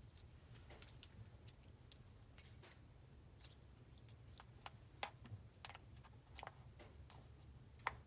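Faint sticky clicks and small pops, scattered irregularly, from a jiggly, stretchy slime being squeezed and stretched in the hands.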